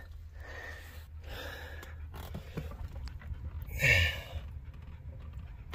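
Husky breathing and sniffing close to the microphone, with one louder huff about four seconds in, over a steady low hum.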